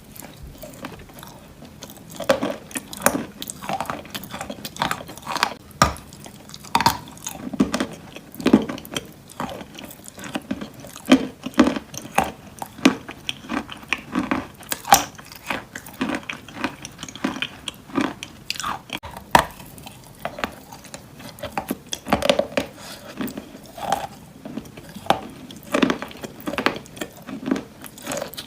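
Wet chalk coated in clay paste being bitten and chewed close to the microphone: irregular soft crunches and crackles, several a second, mixed with wet pasty mouth sounds.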